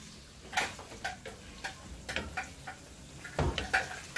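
Wooden spoon tapping and scraping against a frying pan as sausage and egg are stirred: irregular clicks a few times a second, with a louder knock a little past three seconds in.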